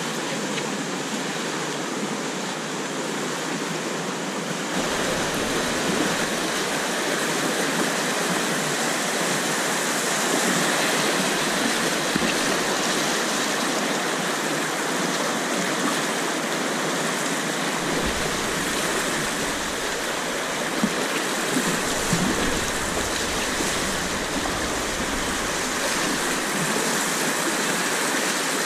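Steady rush of whitewater rapids on a river, heard from a kayak running them; the rush grows fuller and deeper about five seconds in.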